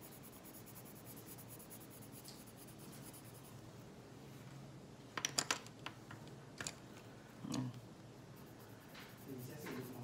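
Faint scratching of a coloured pencil on paper, then a quick clatter of several sharp clicks about five seconds in as wooden coloured pencils knock together while one is put back in the pile and another picked out. A few more single clicks and a dull knock follow.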